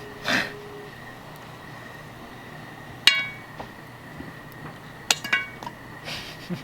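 A few sharp metallic clinks, each ringing briefly: one about three seconds in and two more close together around five seconds, over a faint steady high-pitched hum.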